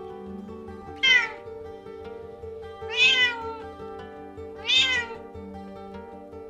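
Bengal cat meowing three times, about two seconds apart, each call sliding down in pitch at the end: a queen vocalising in early labour. Steady background music runs underneath.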